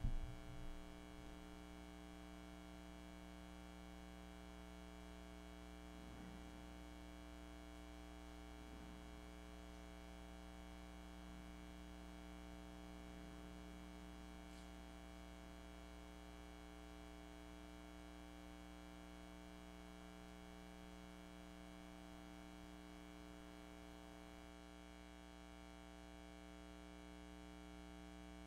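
Steady electrical mains hum, a stack of constant buzzing tones, over otherwise near silence, with a few faint brief sounds partway through.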